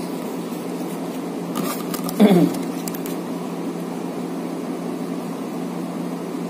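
A steady room hum, with a few faint clicks and slides as playing cards are handled and sorted on a table. A short vocal murmur from the man comes about two seconds in.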